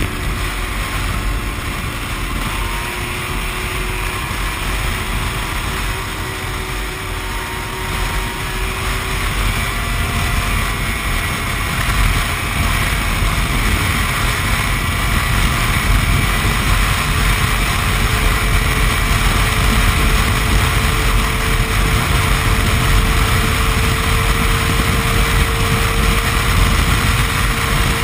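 Yamaha snowmobile engine running under way at a steady pace, growing louder about ten seconds in as it picks up speed.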